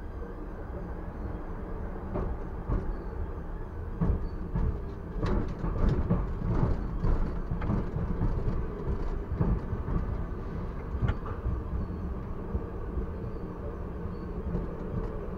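TW6000 tram running along the track: a steady low rumble, with a run of knocks and clatter from about four to eleven seconds in as the wheels cross a set of points.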